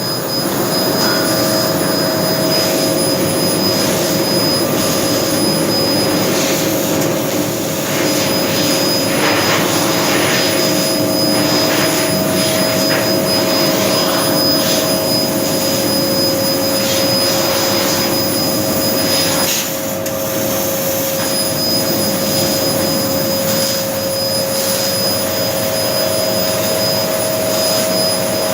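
1500 W fiber laser cutting machine running: a steady hum and rushing hiss, with a thin high whistle that drops out twice, about six seconds in and again around twenty seconds.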